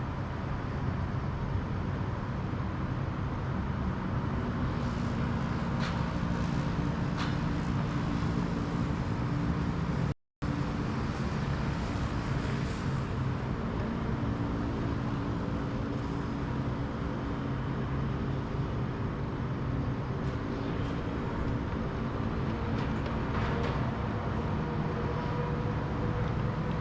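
Steady engine and air noise inside an airliner cabin on the ground just after landing, a constant hum with a few faint clicks. The sound drops out completely for a moment about ten seconds in.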